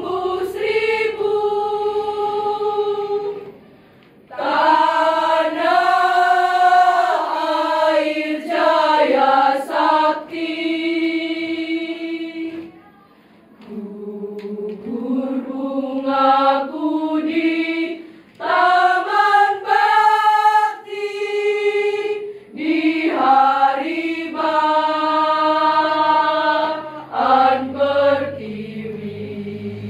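Women's choir singing in parts, phrase after phrase, with two short breaths between phrases about four and thirteen seconds in.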